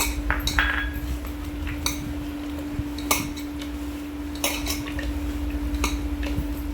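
Chicken pakoda batter with cashews being mixed in a metal bowl: scattered light clinks and knocks against the bowl, over a steady low hum.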